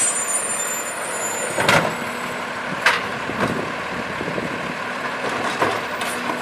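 Heil automated side-loader garbage truck running at the kerb while its hydraulic arm grabs a wheelie bin and lifts it toward the hopper, with a few sharp clanks, the loudest about two and three seconds in.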